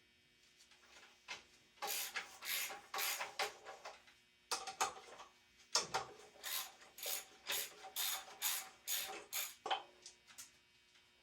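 Hand tools working on the motorcycle's metal parts during disassembly: runs of short rasping strokes, about two or three a second, broken by brief pauses.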